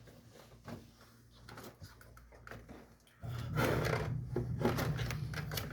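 Light clicks of parts being handled, then about three seconds in a motor switches on abruptly and runs with a steady low hum and rushing noise.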